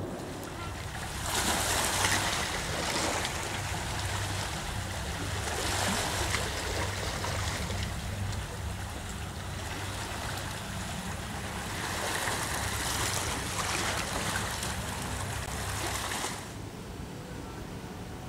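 Sea waves washing over a rocky shore, swelling and easing in several surges, over a steady low wind rumble. The wash drops away about sixteen seconds in.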